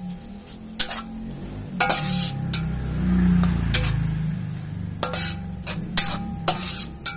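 Metal spatula scraping and knocking against a wok in irregular strokes, stirring diced meat, onion and corn that sizzle steadily as they fry. A low rumble swells around the middle.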